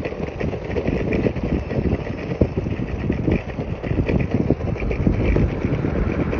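Wind buffeting the phone's microphone on a moving scooter: a steady, dense low rumble with fluttering gusts and a little road noise underneath.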